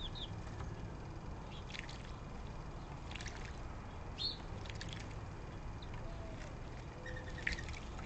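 Small songbirds splashing in a bird bath bowl: short spatters of water a few times, over a steady low rumble.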